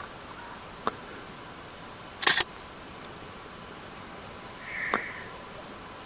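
Camera shutter clicks: a light click about a second in, a louder double click a little after two seconds, and a fainter click just before five seconds in.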